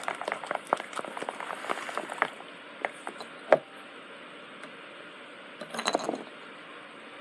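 A wooden stick stirring hand-soap-and-salt slime in a container: rapid clicks and taps against the container that stop a little over two seconds in. A few single knocks follow, then a brief rustle near six seconds.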